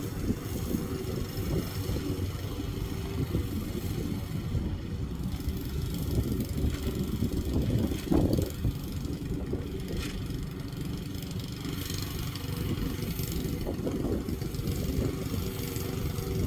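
Lawn mower engine running steadily, with a brief louder moment about halfway through.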